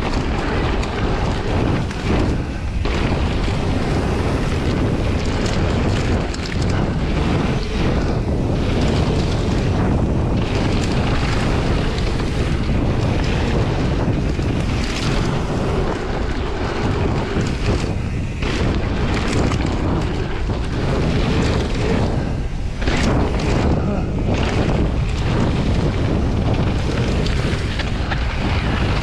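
Wind buffeting the microphone of a camera carried on a moving mountain bike, a loud steady rumble with frequent short knocks and rattles from the ride over rough trail.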